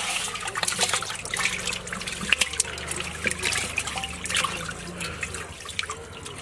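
Shallow water splashing and dripping as hands scoop up small live climbing perch, with many quick little splashes and drips over a steady wash of moving water, easing off slightly near the end.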